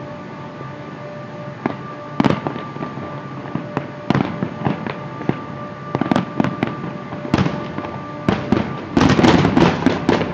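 Fireworks bursting overhead: scattered sharp bangs and crackles that thicken into a rapid volley of reports near the end.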